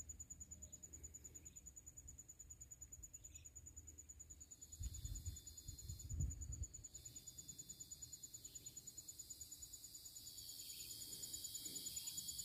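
Faint, steady high-pitched insect trill, with a second high insect hiss swelling near the end. Two brief low bumps about five and six seconds in.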